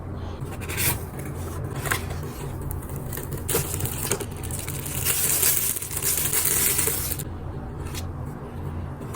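Packaging being handled in an unboxing: rustling and scraping, with a few short bursts and then a longer, louder stretch in the middle, over a steady low hum.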